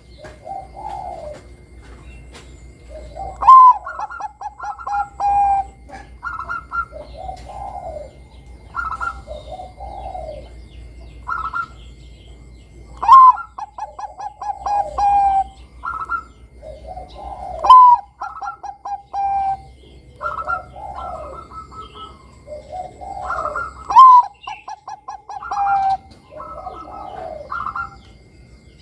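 Bangkok-line zebra dove (perkutut) cooing its contest song: phrases that open with a loud, sharp high note and run into rapid stuttering coos and softer, lower rolling notes, repeating every few seconds.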